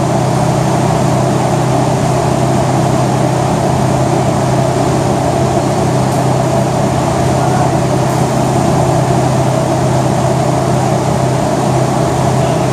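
A machine running steadily: a loud, even motor hum with a rushing of air over it, unchanging throughout.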